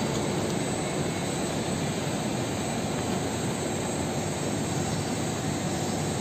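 Steady rushing machinery noise with a faint low hum, unchanging throughout, from the chairlift station and the machinery of an indoor snow hall.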